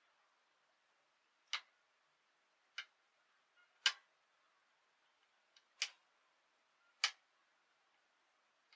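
Skeleton marionette's feet tapping the floor as it dances: five sharp, dry taps at uneven intervals of one to two seconds, with a couple of fainter ticks between them.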